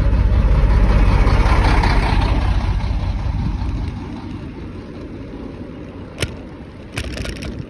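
Heavy dump truck's diesel engine running close by, a low rumble that is loudest as the bicycle passes alongside and fades as the truck falls behind. A couple of sharp clicks near the end.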